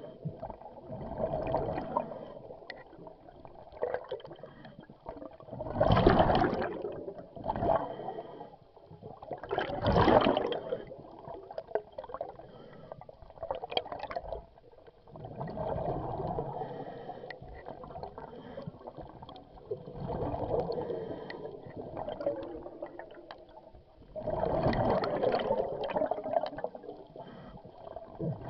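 Scuba diver breathing through a regulator underwater: a slow cycle of breaths, each exhale a gurgling rush of bubbles, recurring every four to five seconds.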